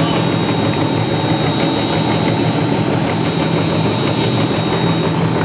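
Steady mechanical drone of snack extrusion line machinery running, with a low hum and a faint high whine over it.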